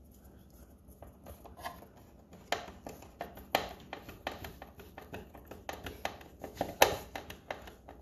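Hand screwdriver driving screws back into a fridge freezer's plastic ice-dispenser housing: a run of small, irregular clicks and ticks, a few a second, that starts about two and a half seconds in.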